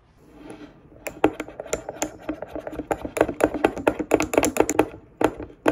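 A rapid run of sharp clicking taps, several a second, starting about a second in and lasting about four seconds, followed by two single taps near the end.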